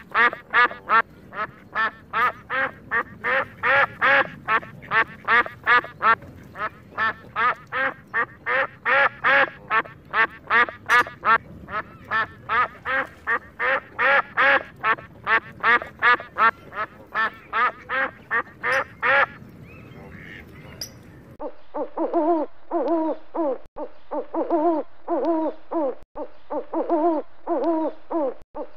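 Waterfowl calling in a steady, rapid series of loud calls, about two or three a second, which stops about two-thirds of the way through. After a short lull a different rhythmic series of owl hoots takes over.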